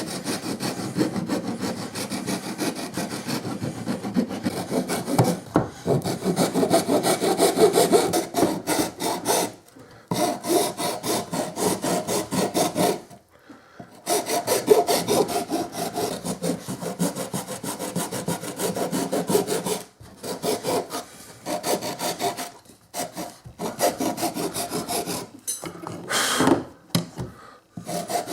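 Hand file rasping on a plastic Choate pistol-grip stock, filing it down so it fits against the shotgun's receiver. Quick back-and-forth strokes in runs of several seconds, with short pauses between.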